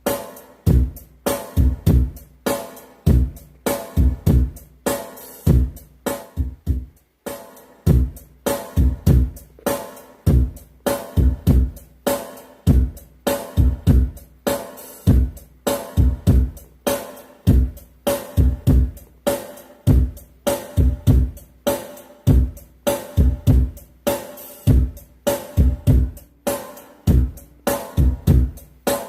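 Drum-heavy test music with a deep kick drum, snare and cymbals, played loud on a steady beat through a loudspeaker driven by an M500 power amplifier driver kit, with no tone-control board in the chain.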